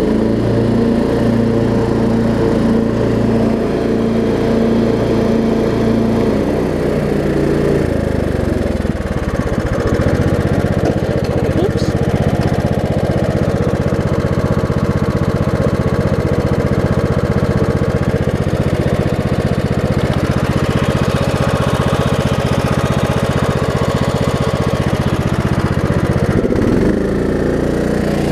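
Craftsman LT1750 riding mower's engine running steadily. Its note changes about nine seconds in and again near the end.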